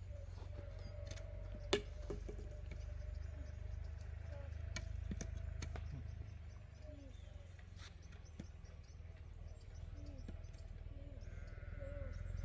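Livestock bleating faintly and repeatedly over a low steady rumble, with one sharp knock about two seconds in.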